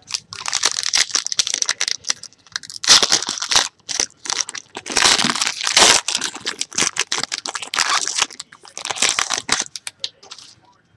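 A foil trading-card pack wrapper being torn open and crinkled by hand, in several irregular spells of crackling rustle, the loudest about three and five to six seconds in.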